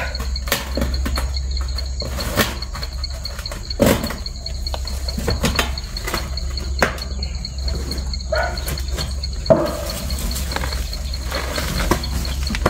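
Insects trilling steadily, a high, rapidly pulsing buzz, with scattered knocks and rustles from someone climbing along a fence post through tall grass.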